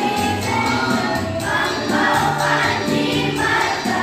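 Girls' choir singing together, with held low accompaniment notes underneath.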